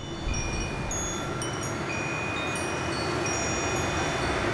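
Steady wind noise, strongest low down, with scattered high, clear ringing tones at several different pitches coming and going over it.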